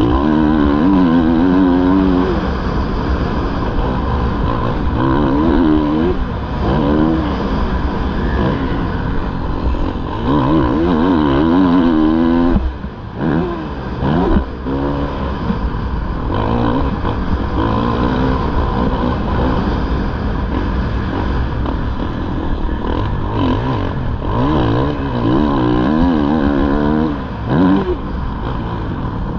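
Kawasaki KX450F's single-cylinder four-stroke engine revving up and down under hard riding, its pitch rising and falling over and over as the rider works the throttle and gears. The engine note drops off briefly about 12 seconds in and again near the end, where the throttle is shut.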